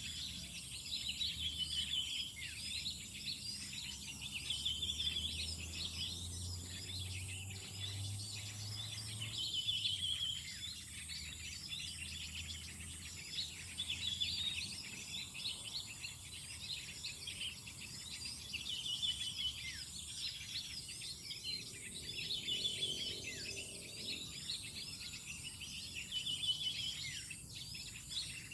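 Many small wild birds chirping and calling at once: dense, overlapping short high calls, with a trilled phrase recurring every couple of seconds. A faint low rumble comes in for a few seconds near the first third.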